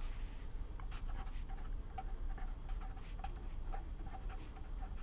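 Pen writing: a run of short, irregular scratches.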